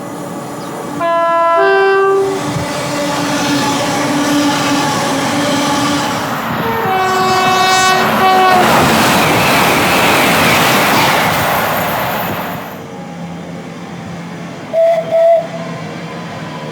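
A British train's two-tone horn sounds twice, a short high-then-low blast about a second in and a longer one around seven seconds in, then the train passes with a loud rushing of wheels and air that fades away. Near the end come two short, loud high notes.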